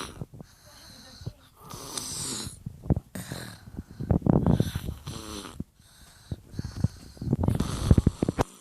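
A two-year-old child snoring loudly in his sleep: a run of rattling snores with hissing breaths between them, the strongest about four seconds in and again near the end.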